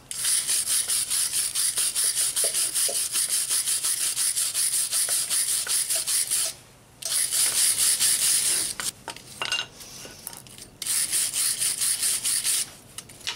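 Hand wire brush with steel bristles scrubbing rust off brake caliper parts in quick back-and-forth strokes, stopping briefly a few times before starting again.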